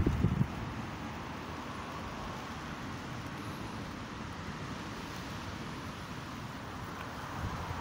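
Steady, even outdoor background noise with no distinct events, after a brief low rumble that fades out within the first half second.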